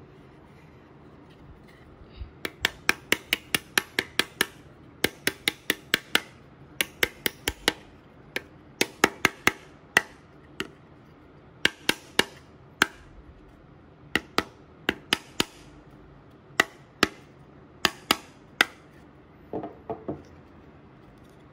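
A small double-faced mallet tapping laser-cut wooden panels to seat their tab-and-slot joints. The sharp taps come in quick runs of about five a second, with short pauses between runs. A softer scuffle of handling follows near the end.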